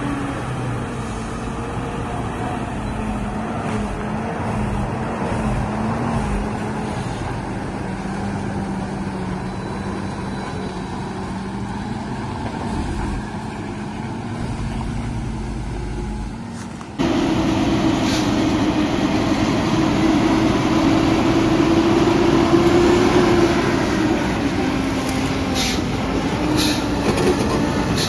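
Heavy logging truck's diesel engine running, its note wavering up and down. About seventeen seconds in it jumps abruptly to a louder, higher engine note. A few sharp knocks come near the end.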